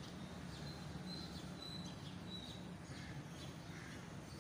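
Faint bird chirps: a string of short, high calls repeated every half second or so, over a steady low background hum.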